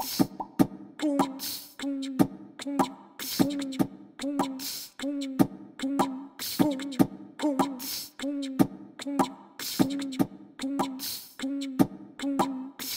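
Background music with a steady, looping beat of sharp percussive hits and short repeated low pitched notes, in a beatbox style.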